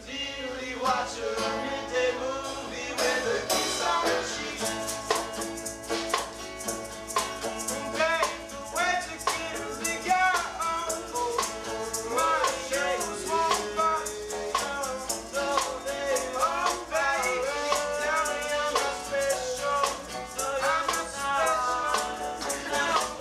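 Live acoustic band music: strummed acoustic guitar and banjo over a snare drum, with a shaker keeping a fast, even rhythm.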